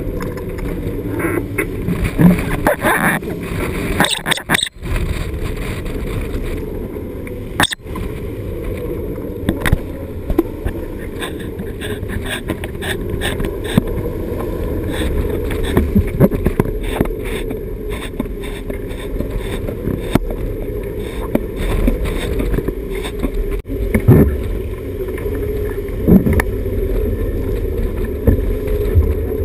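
Strong wind buffeting the microphone aboard a sailing yacht plunging through heavy seas, a steady deep rush with water and spray sweeping over the deck. Several sharp knocks stand out, the loudest about three-quarters of the way through.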